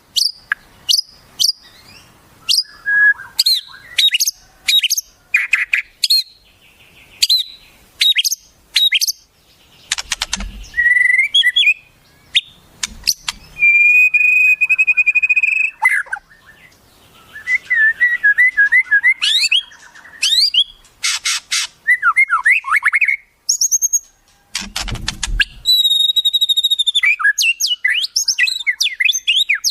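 Songbird song of quick, sharp whistled notes and trills mixed with harsh rasping calls, with one long held whistle about halfway through.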